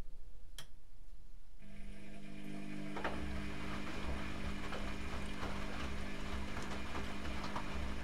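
Privileg Classic 30612 front-loading washing machine: a click, then about one and a half seconds in the drum motor starts with a steady hum. The drum turns, and wet laundry tumbles in it with a low rumble and irregular knocks.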